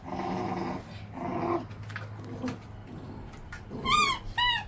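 Central Asian Shepherd puppies play-fighting: low growls in the first second and a half, then two short high-pitched yelps near the end.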